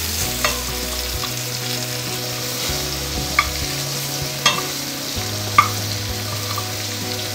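Cubes of paneer and potato frying in mustard oil in a cast-iron pan, sizzling steadily as a metal spatula stirs and tosses them. Three sharp taps of the spatula against the pan come a little after the halfway point.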